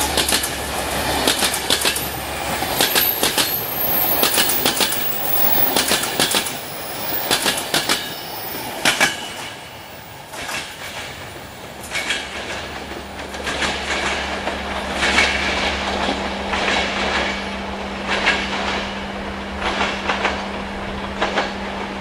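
Passenger train coaches rolling past close by, their wheels clicking quickly over the rail joints; after a short lull the clicks come further apart as the train draws away, and a steady hum comes in about halfway through.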